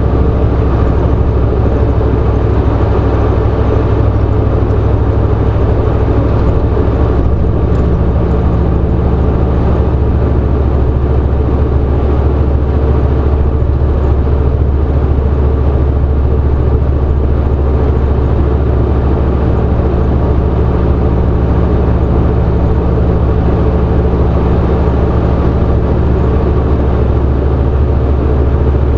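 Motor vehicle running steadily, a constant low drone with an even rushing noise above it.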